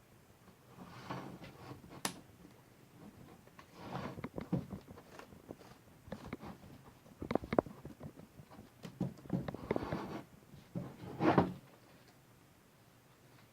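Laptop being reassembled by hand: scattered plastic clicks, taps and short scraping rustles as parts such as the keyboard are pressed and fitted back into place, the loudest about eleven seconds in.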